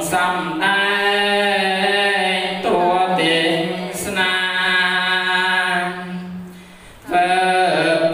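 A man chanting a Buddhist recitation through a microphone in long, drawn-out notes on a near-steady pitch, pausing briefly for breath twice.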